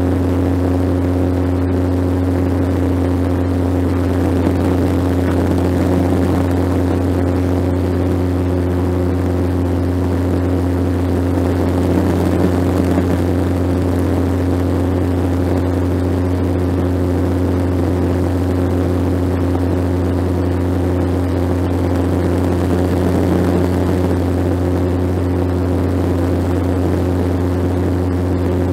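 Bombardier Q400 Dash 8 turboprop in flight heard from inside the cabin: its six-blade propellers and Pratt & Whitney PW150A engines give a steady low drone, with several fainter steady tones above it, over a rush of air noise.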